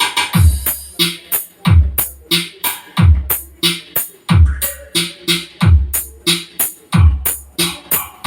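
Electronic dance or hip-hop track played loud through a Konzert KS650v speaker on a Konzert AV502a amplifier during a sound check: a deep kick drum that drops in pitch lands about every 1.3 seconds, with busy hi-hats and snare hits between.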